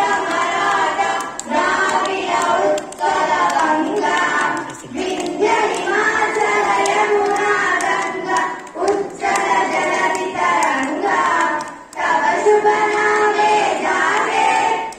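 A group of schoolgirls singing together into handheld microphones, phrase after phrase with short breaks for breath.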